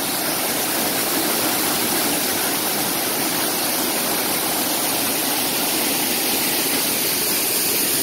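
Waterfall crashing into its plunge pool at close range: a steady, even rush of falling water.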